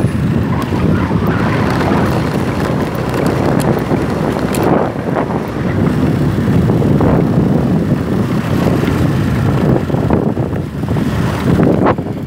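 Wind buffeting the microphone of a phone carried on a moving motor scooter, a steady rumble with the scooter's road and engine noise mixed in.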